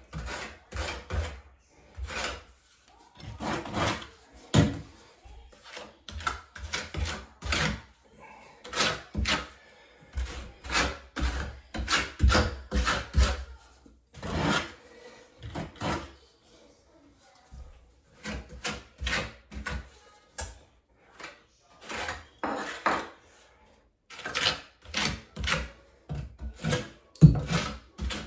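A trowel scraping thinset mortar, in many short irregular strokes with brief pauses.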